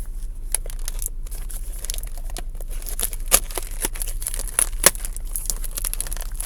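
A baseball card pack wrapper crinkling and tearing as it is opened, in irregular crackles, the sharpest about three and five seconds in. A steady low hum runs underneath.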